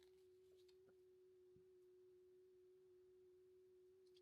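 Near silence, with a faint steady single-pitch tone held throughout.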